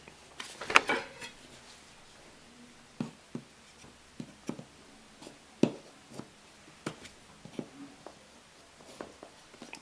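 A knife scratching and picking at the plastic shrink-wrap seal on a phone box: an irregular run of faint scratches and light clicks, with the plastic hard to cut.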